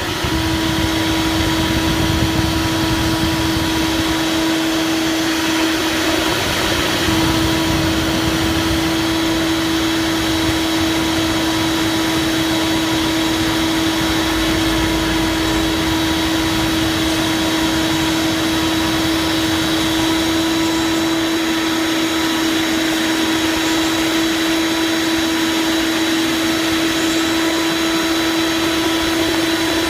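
CNC milling machine's spindle running at a constant high speed: a steady whine with a hiss, unchanging throughout.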